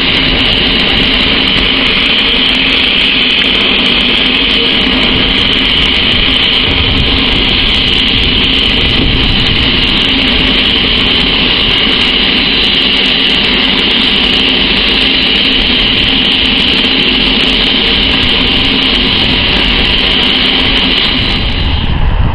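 C-130 Hercules turboprop engines running steadily on the ground: a loud, steady high whine over a low rumble. Near the end the whine fades and a deeper rumble takes over.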